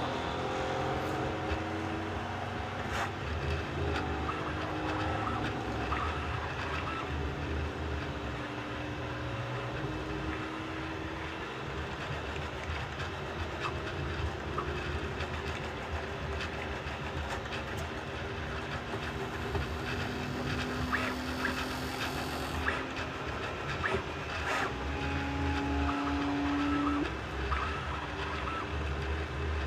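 Bambu Lab A1 Mini 3D printer running a print: its stepper motors whine in steady tones that shift in pitch every few seconds, over a low rumble with scattered light clicks.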